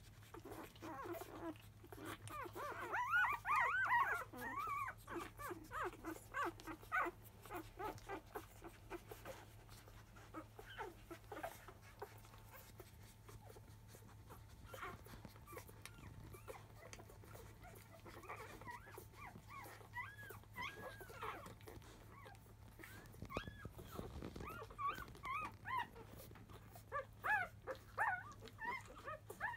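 Five-day-old Labrador retriever puppies squeaking and whimpering as they jostle to nurse at their mother: many short, high squeals that rise and fall in pitch. They come thick in the first few seconds, thin out in the middle, and pick up again from about two-thirds of the way through.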